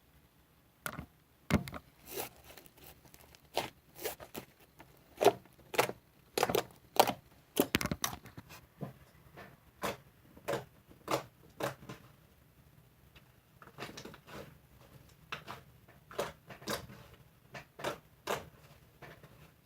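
An irregular series of sharp clicks and knocks with short rustling and scraping handling sounds, busiest and loudest in the first half.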